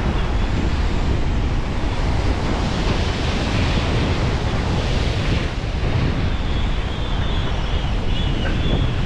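Sea waves breaking and washing over rocks at the foot of a sea cliff, with wind buffeting the microphone.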